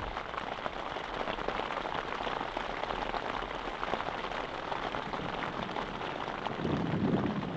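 Steady rain falling, a dense, even hiss of countless small drop hits.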